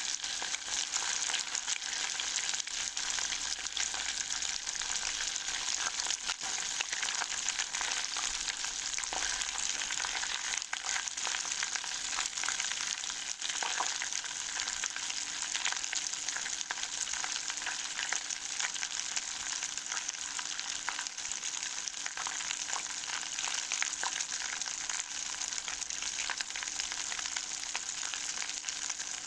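Butter in a saucepan on medium heat, sizzling with dense, steady crackling as it melts and foams: the noisy stage of making brown butter, before the sound dies down and the butter starts to colour.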